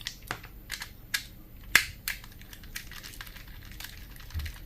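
Light, irregular clicks and taps of small tools and parts being handled on a workbench while taking apart a CO2 magazine, the sharpest click about two seconds in.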